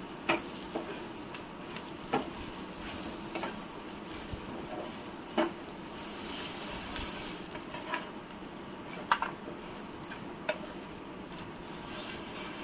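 Onion pieces sautéing lightly in ghee with whole spices in a pan: a low, steady sizzle as they are stirred, with about seven sharp taps of the stirring utensil against the pan.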